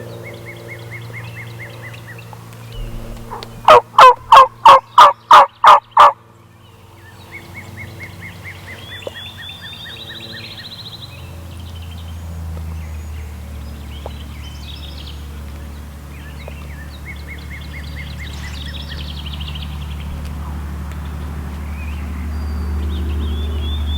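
A loud series of eight turkey yelps, about three a second, with small songbirds trilling repeatedly behind them.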